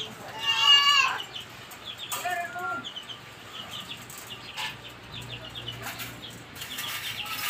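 Chickens calling: a loud, short pitched squawk about half a second in and a weaker call around two seconds in, over a run of quick high chirps.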